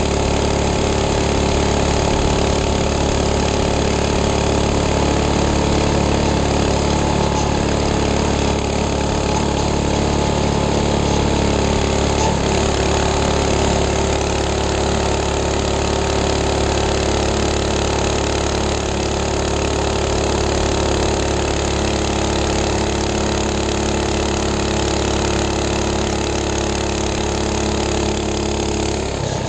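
Minibike engine running at a steady cruise while riding, its note holding nearly constant pitch.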